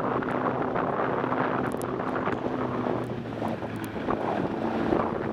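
Snowmobile engine running steadily at trail speed, with wind rushing over the microphone. The engine tone eases off briefly about three seconds in, then picks up again.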